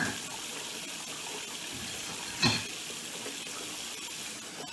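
Kitchen tap running steadily into the sink during washing up, with one sharp knock of a dish or utensil about two and a half seconds in.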